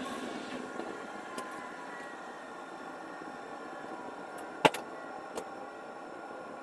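Train running along the track, heard from the driver's cab: a steady rolling noise with faint even tones, and a single sharp click about four and a half seconds in.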